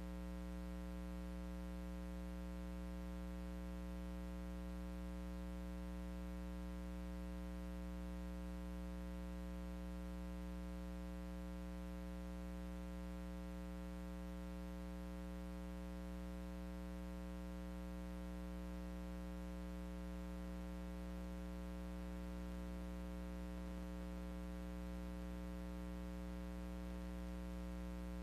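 Steady electrical mains hum with a buzz of many even overtones over faint hiss, unchanging throughout.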